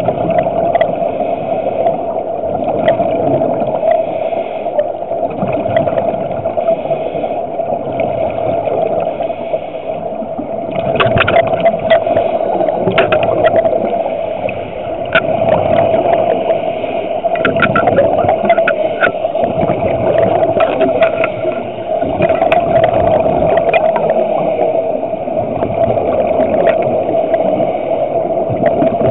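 Muffled underwater sound recorded through a compact camera's waterproof housing: a steady hum over a wash of water noise, swelling in loudness every several seconds. Scattered crackling clicks come in about a third of the way through and continue through the middle.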